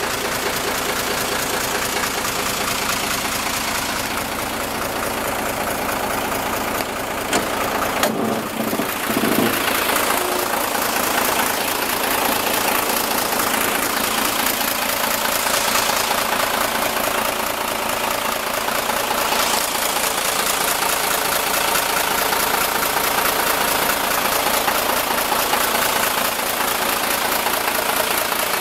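Mitsubishi 6D16 inline-six turbo diesel idling steadily, with a couple of brief knocks about seven to eight seconds in.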